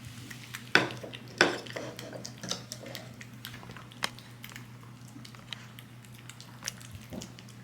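Dishes clinking and being handled: a few sharp clinks, the loudest about a second in, then lighter taps and ticks. A steady low hum runs underneath.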